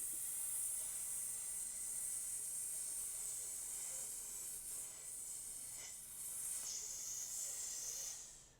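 A woman hissing like a snake, one long, steady high 'sss' on a single drawn-out exhale as a 'snake breath' relaxation exercise, dying away near the end.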